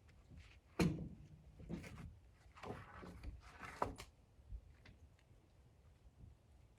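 Several faint knocks and clunks about a second apart in the first four seconds, then only low background noise.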